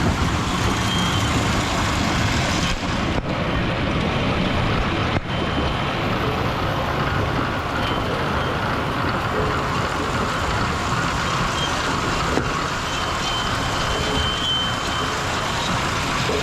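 Diesel engine of a John Deere 7210R tractor running steadily while it works a root-picking machine through the ground.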